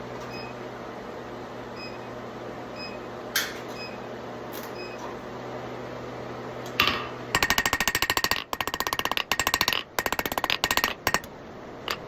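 A steady low hum with two single knocks, then a fast run of hammer strikes on hot steel bar, about ten a second with a few short breaks, as the bar's end is drawn out long and thin.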